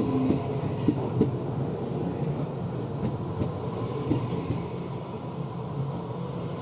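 Taroko Express TEMU1000 tilting electric multiple unit rolling slowly past close by, with a steady low motor hum and a few clicks of wheels over rail joints.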